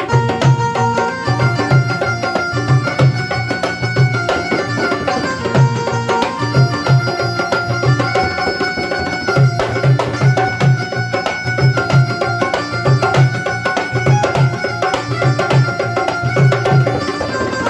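Music with a steady, repeating drum beat under several melodic instrument lines.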